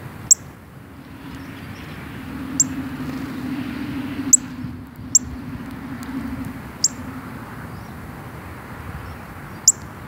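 Northern cardinal giving sharp, high chip calls, six single chips at uneven intervals. A low hum swells underneath through the middle.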